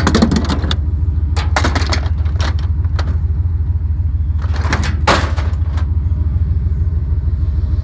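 Truck engine running with a steady low drone, with short clusters of rattling knocks and clunks several times over it.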